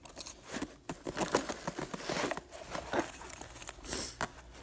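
Handling noise of a black tactical backpack being moved around in a cardboard box: fabric rustling and crinkling, with light clinks.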